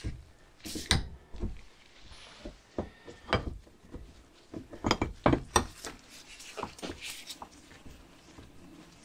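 Steel bench vise being cranked to press a new two-part suspension bush home, with its handle clanking and irregular metal knocks, loudest about five seconds in.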